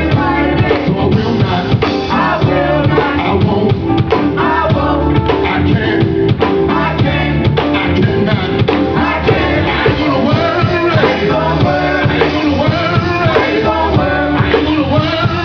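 Live gospel music: voices singing over a band with a steady drum beat.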